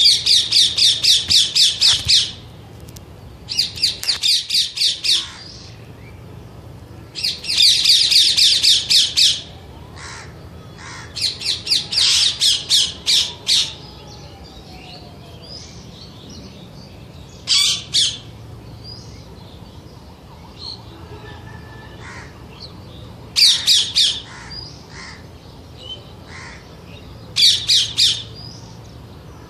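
Green parrot screeching in bouts of rapid, harsh repeated shrieks, several notes a second; long bouts come close together in the first half, then short bursts spaced several seconds apart.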